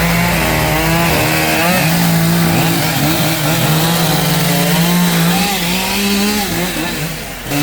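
Chainsaw running steadily at high speed, its pitch wavering up and down, with a brief dip near the end.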